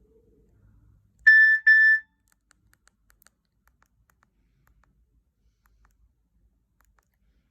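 Nokia C2-01 mobile phone sounding two short, high beeps in quick succession, followed by a few faint clicks.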